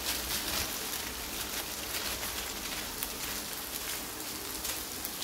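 Onions, potatoes, peanuts and green peas frying in hot oil in a steel kadhai: a steady sizzle with a few light crackles.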